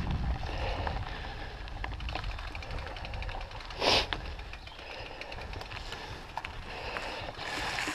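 Mooto-X RSL mountain bike rolling down a leaf-covered dirt trail: steady rumble of tyres and wind on the microphone, with light rattles and faint ticking. A brief louder rush comes about four seconds in.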